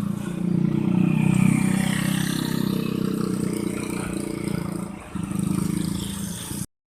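Bus engine pulling away under acceleration. It is loudest about a second in, then slowly fades, and cuts off suddenly near the end.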